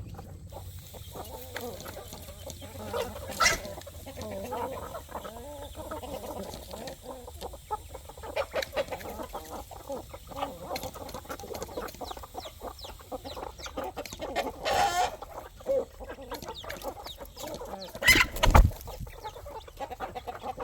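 A flock of chickens and roosters clucking while being fed, with many short clicks through it. A louder, higher call about fifteen seconds in, and a loud thump near the end.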